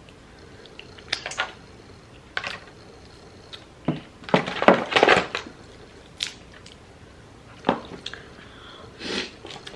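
Wet squishing and chewing sounds of sauce-coated shrimp and crab being handled and eaten: short, sharp bursts and clicks every second or so, with a denser cluster about four to five seconds in.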